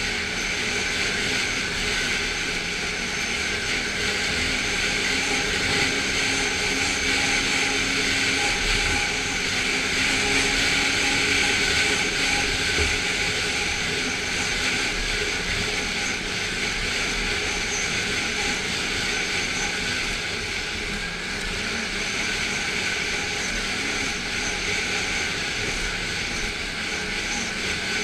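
Snowmobile engine running steadily under way, a continuous drone with several steady tones over track and wind noise, a little louder around the middle.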